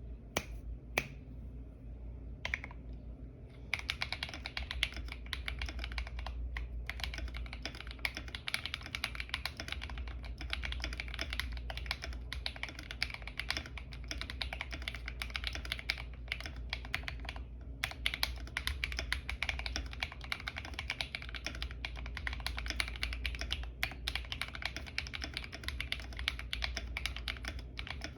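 Typing on a Tofu65 mechanical keyboard with Akko V3 Cream Yellow linear switches. A few single keystrokes come first, then fast continuous typing from about four seconds in, with brief pauses.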